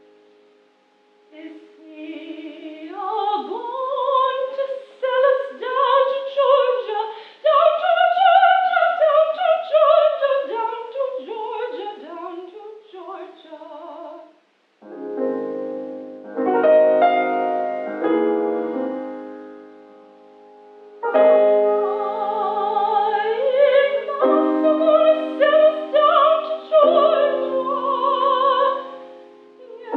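A woman sings in a classical, operatic style with wide vibrato, accompanied by a grand piano. About halfway through the voice drops out and the piano plays chords alone for several seconds. Then the singing resumes over the piano.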